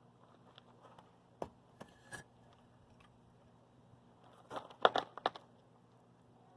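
A few short knocks and scrapes of objects being handled: three light ones in the first half, then a louder quick cluster of several hits a little after the middle.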